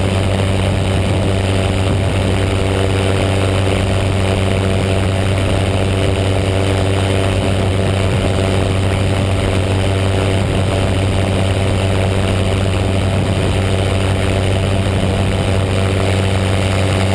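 Paramotor engine and propeller running steadily in flight at one unchanging pitch, loud and close to the microphone.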